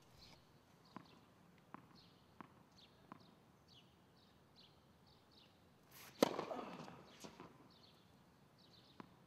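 A tennis ball bounced several times on a hard court, soft even knocks, with faint bird chirps in the background; about six seconds in comes one sharp crack of a racket striking the ball, ringing off the surrounding walls.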